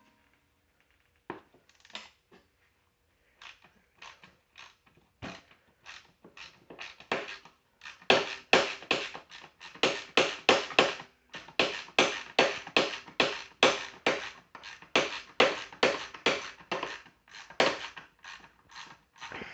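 Hand ratchet wrench clicking back and forth in short strokes while loosening a mower's engine mount bolts. The strokes are scattered at first, then come steadily and louder, about two a second, from about eight seconds in.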